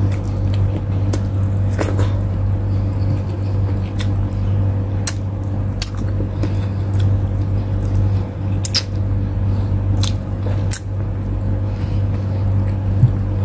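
Eating by hand: wet squishing, chewing and small clicks as fingers pull meat off saucy chicken wings and work the rice on a plate. Scattered short sharp clicks come over a steady low hum.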